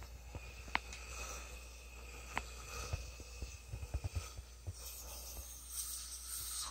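Faint airy hissing and breathing as a man sprays 5% lidocaine into his own throat through a home-made, oxygen-driven atomizer held in his mouth, during airway topicalization for an awake intubation. There are two small sharp clicks and some soft handling knocks, and the hiss grows stronger near the end.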